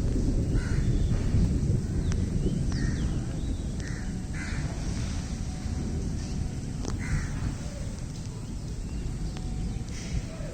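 Crows cawing several times at irregular intervals over the steady hiss of heavy rain.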